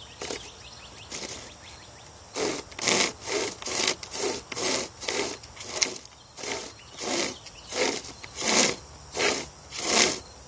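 Homemade hand chainsaw, a length of dull chainsaw chain with handles, rasping through a log in quick back-and-forth strokes, about two a second. The sawing starts in earnest about two seconds in and stops near the end.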